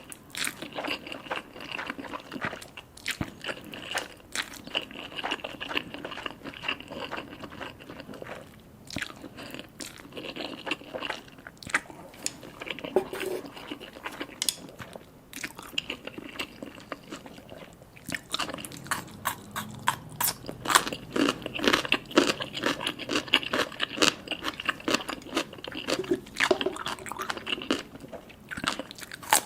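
Close-miked eating sounds of spicy instant ramen with fish balls and mini sausages: steady chewing and biting with many quick, wet mouth clicks, getting busier and louder in the second half.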